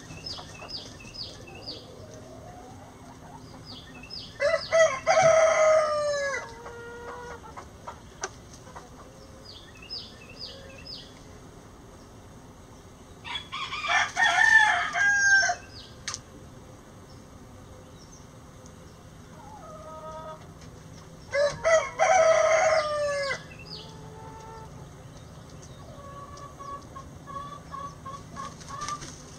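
Roosters crowing three times, each crow about two seconds long, with soft hen clucks and short runs of quick high chirps in between.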